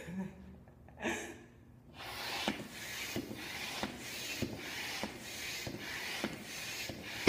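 Floor-standing hand air pump being worked in steady strokes, about three every two seconds, each a rush of air with a light knock, inflating a latex balloon. Right at the very end the balloon bursts with a loud bang.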